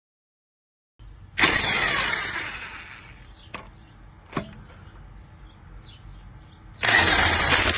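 Corded 1/2-inch impact wrench fired in two short bursts, each a loud hammering rattle, with two small clicks between them. The first burst winds down over about a second and a half. The wrench is driving a lug nut over washers to draw a wheel stud into the hub.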